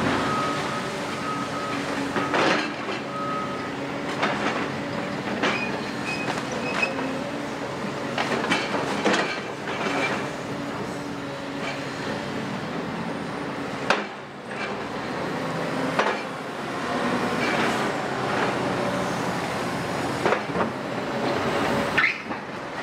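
Doosan DX255LC-5 excavator's six-cylinder diesel running under load while its sorting grab works demolition rubble, with rubble clattering and sharp knocks and scrapes of metal throughout. A short high beep repeats over the first few seconds.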